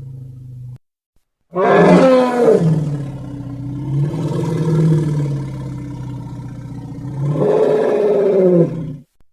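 A large animal's long, low pitched call, lasting about seven and a half seconds, sliding in pitch as it starts and rising again shortly before it breaks off. The end of an earlier call fades out in the first second, followed by a short pause.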